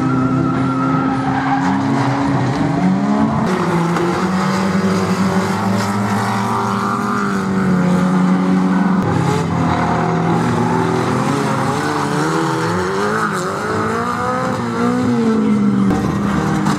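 Several bomber-class banger cars' engines revving hard around the oval, their pitch rising and falling as they accelerate, lift off and pass one another, with several engines heard at once.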